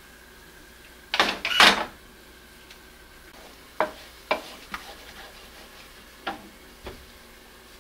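A loud clatter of cookware being handled lasts under a second, about a second in. Then a wooden spatula stirs milk-and-egg carbonara sauce in a frying pan, knocking sharply against the pan several times.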